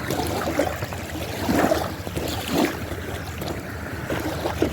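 Lake water lapping at the shore, with wind rumbling on the microphone and a few short, irregular splashes.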